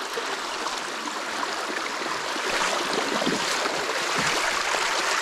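Creek water rushing steadily through the opening torn in a beaver dam, growing slightly louder over the few seconds.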